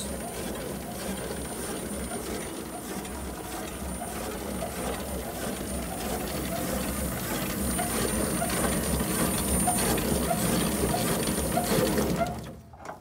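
1920 Stanley steam car's two-cylinder steam engine running on compressed air from an air compressor, a steady rapid chuffing and hissing as it turns the jacked-up rear wheels. It grows slightly louder, then cuts off abruptly near the end.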